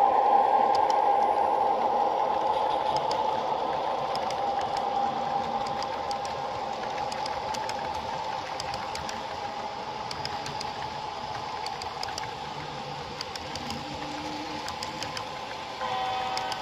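Athearn HO-scale EMD SD45-2 model locomotive running past, a steady mechanical hum with several steady tones, loudest at first and fading as it moves away, while the freight cars' wheels tick lightly over the track. Near the end a brief chord of higher tones sounds.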